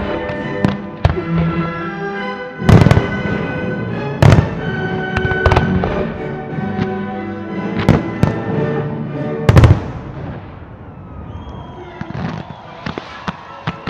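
Aerial firework shells bursting in a series of loud bangs over music, the heaviest bangs about 3 and 10 seconds in. After about 10 seconds the music drops away, leaving quieter, scattered pops.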